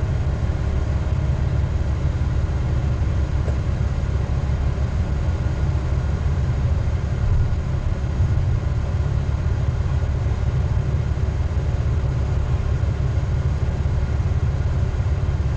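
Diesel engine of a Tigercat knuckleboom log loader running steadily, a low even hum with no revving.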